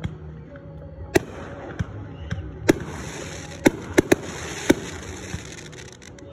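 Aerial fireworks bursting overhead in a string of sharp bangs, several close together about four seconds in, with a crackling hiss of sparks in the middle of the run.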